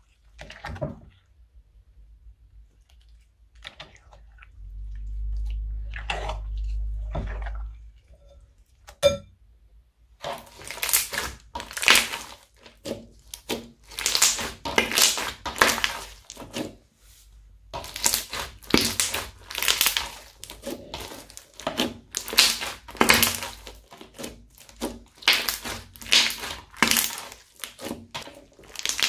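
Crunchy bead-filled slime being squeezed and kneaded by hand, with crackling, popping crunches coming in quick irregular clusters from about a third of the way in. Before that there are only sparse sticky clicks and a low rumble for a few seconds as the slime comes out of the bowl.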